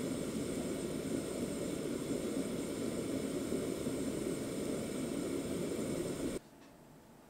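Steady low rushing noise from the stovetop heating a grill pan of bread rolls; it cuts off suddenly about six seconds in.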